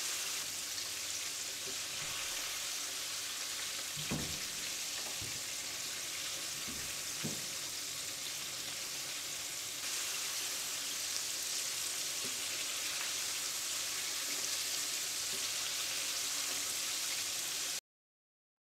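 Flour-coated chicken wings deep-frying in hot oil: a steady, crackling sizzle, with a few faint knocks in the first half. The sound cuts off suddenly near the end.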